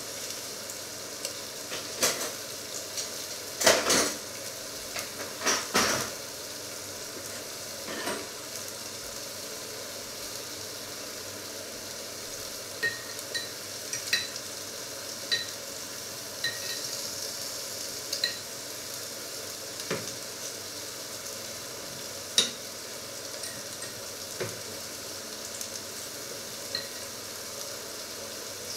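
Steady sizzle of food frying under the lid of a cast-iron grill pan. Scattered clicks and knocks run over it, among them small clinks of a metal fork in a glass jar.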